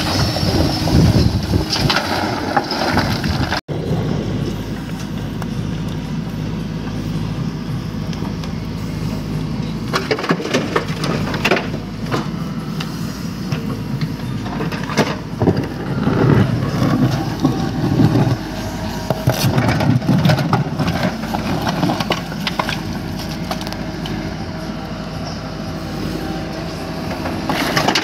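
Mahindra EarthMaster SX Smart backhoe loader's diesel engine running steadily under load while the bucket scrapes and crunches through wet mud and stones. The scraping and rattling come in irregular bursts, thickest in the middle of the stretch.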